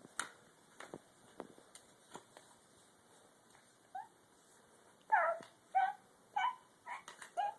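Young child making short, high-pitched vocal noises: one about four seconds in, then a quick run of five near the end. A few faint taps come earlier.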